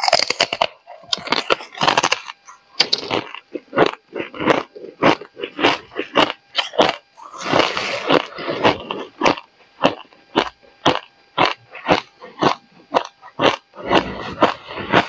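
Close-miked crunching of hard frozen ice being chewed, a sharp crunch about three times a second, with a denser burst of crunching about halfway through.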